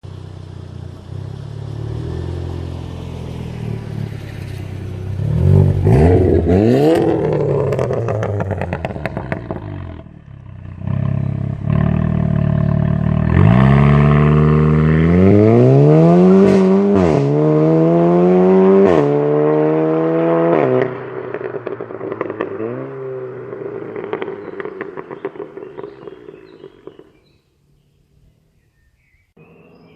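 VW Golf 7 GTI Clubsport's turbocharged 2.0-litre four-cylinder accelerating hard through quick DSG upshifts, the engine note climbing and stepping down at each shift. On the lift-off the exhaust pops and crackles repeatedly as the sound fades away, a sound typical of the custom downpipe and non-resonated midpipe. Near silence follows just before the end.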